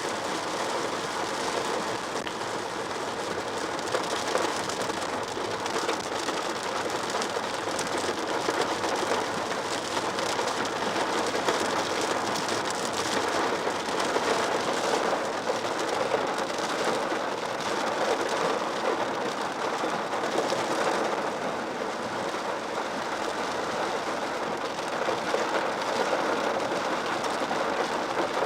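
Heavy rain falling on a taxi, heard from inside the cabin as a steady, dense hiss.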